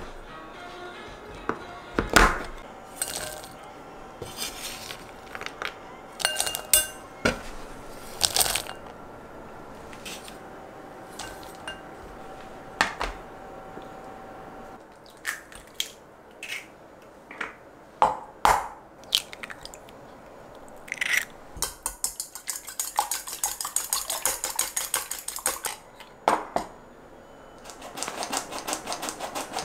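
Clinks and knocks of glass bowls, dishes and utensils as baking ingredients are handled. Near the end comes the rapid, even clicking of a hand-crank stainless steel flour sifter being turned over a glass bowl.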